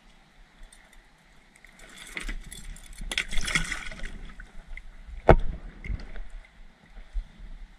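Splashing and water noise as a released crappie goes back over the side of a plastic kayak, followed about five seconds in by a single sharp knock, the loudest sound.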